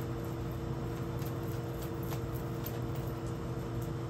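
A deck of tarot cards being shuffled by hand, faint soft clicks of the cards, over a steady low electrical hum.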